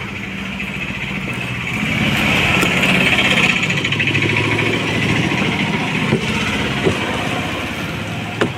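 A small engine running close by, its sound swelling about two seconds in and slowly fading, with a few light clicks near the end.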